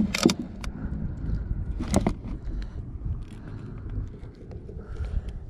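Handling noise in a plastic kayak: a few sharp knocks and clicks of the fishing rod and gear, the clearest right at the start and about two seconds in, over a low steady rumble.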